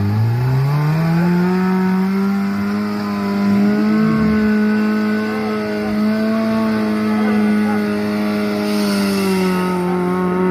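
Off-road 4x4's engine revving up quickly, then held at a high, steady pitch under sustained throttle.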